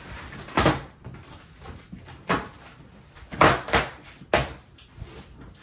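A series of irregular knocks and thumps, about five in all, with the loudest two coming close together about three and a half seconds in.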